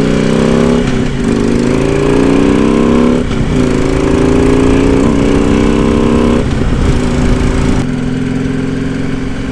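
Harley-Davidson V-twin motorcycle engine under way, heard through a helmet-mounted lavalier mic: its pitch climbs and then drops back at about one, three and six and a half seconds in, as the bike accelerates and shifts up through the gears, then runs steadily.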